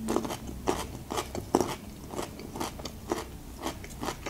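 Chewing a crunchy pickled gherkin with the mouth closed: steady crisp crunches, about two to three a second.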